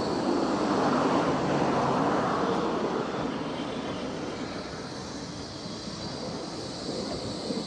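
Blackpool Flexity 2 tram passing close by on the track: a running rumble of the tram and its wheels on the rails, loudest in the first two or three seconds and then fading as it moves away. A steady high whine runs through it.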